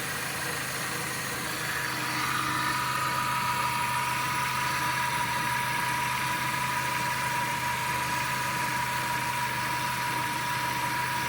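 Car engine idling steadily, with a thin steady whine coming in about two seconds in. The noisy alternator has already been replaced, so the engine is running with only its normal sound.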